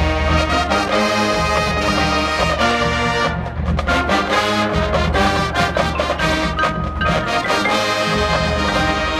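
Marching band playing: brass chords over drums, with a short break in the sound about three and a half seconds in.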